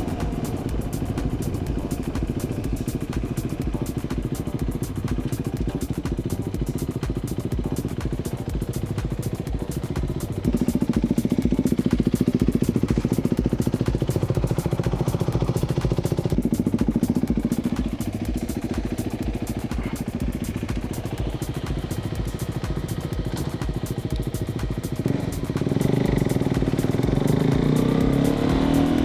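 KTM motorcycle engine running under way with wind and road noise. The engine pulls harder about a third of the way in, eases off, then picks up again near the end with rising pitch as it accelerates.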